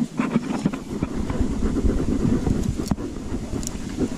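Rumbling handling and rustling noise from a body-worn camera pushing through leafy undergrowth, uneven and low, with one sharp click about three seconds in.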